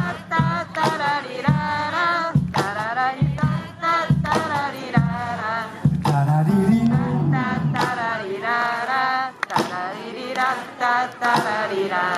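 Tap shoes striking a stage in quick, irregular taps over music with a singing voice holding wavering, sliding notes.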